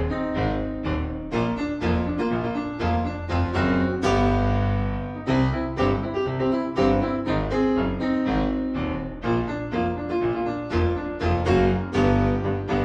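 Background piano music: a quick run of notes over a low bass line.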